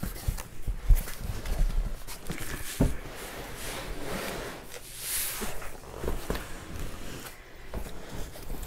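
Small retail product boxes being pulled out of a shipping box and handled: rustling and sliding of cardboard and packaging, with several light knocks as they are set down.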